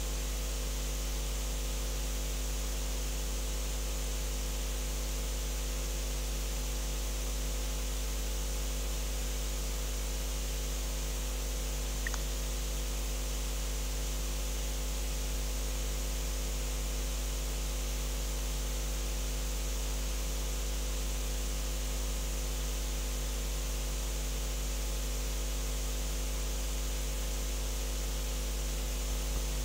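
Steady electrical hum and hiss from the sound system, with no music or voice over it. A single faint click comes about twelve seconds in.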